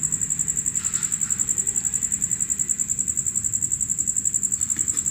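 Cricket trilling steadily: one high-pitched note pulsing about ten times a second.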